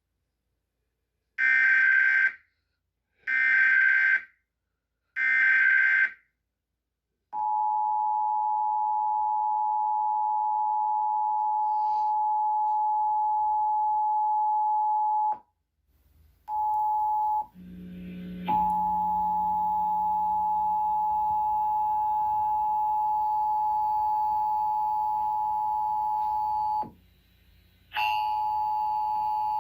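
Emergency Alert System test signals: three one-second bursts of warbling SAME header data tones, then the steady two-tone EAS attention signal (853 and 960 Hz). The attention tone stops about halfway through, comes back briefly, then plays again over a low hum and hiss, cutting out for a moment near the end before resuming.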